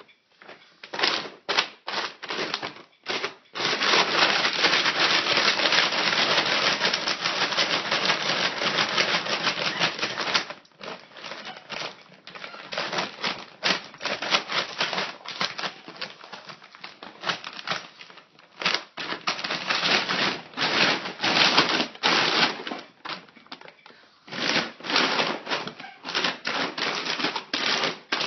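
Plastic dog-food bag crinkling and rustling as a dog roots its nose into it. The crackling runs continuously for several seconds, then comes in rapid stop-start bursts.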